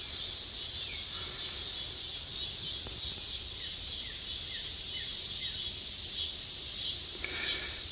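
Steady high-pitched insect chorus with a regular pulsing, joined by a few short, falling bird chirps in the middle.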